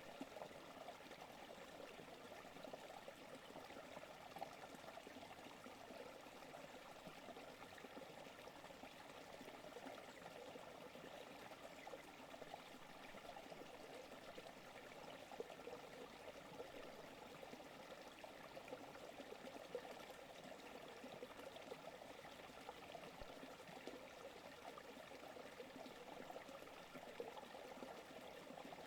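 Forest creek flowing, a faint, steady trickling and babbling of water over stones.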